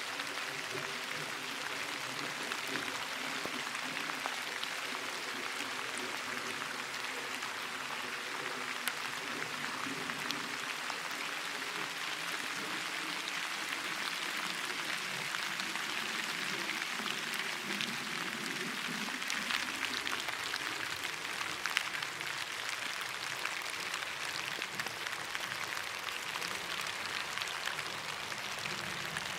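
Steady rain falling on leaves: an even hiss with many small drop ticks. A faint low hum runs under it and fades out about two-thirds of the way through.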